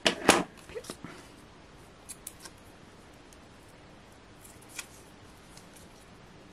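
A pair of scissors clattering twice in quick succession as they are put down on a cutting mat, followed by a few faint clicks and rustles of hands handling paper pieces.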